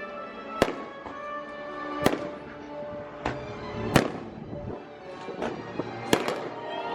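Fireworks bursting: about five sharp bangs with smaller pops between, spaced one to two seconds apart, over steady music playing throughout.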